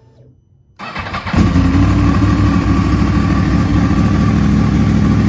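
2012 Yamaha R1's crossplane inline-four engine cranked by the electric starter about a second in, catching within half a second and settling into a steady idle. It is being started on fresh oil after an oil change to fill the oil filter before a level check.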